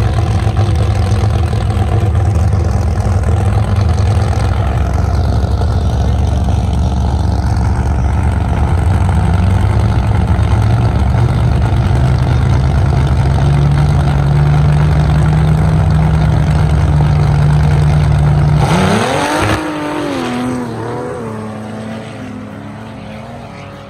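Modified Jeep Cherokee engines held at high revs, steady and loud, the pitch creeping slightly higher partway through. About 19 seconds in, this gives way to a Cherokee engine revving up in rising sweeps as it shifts, fading as the vehicle climbs away up the sand dune.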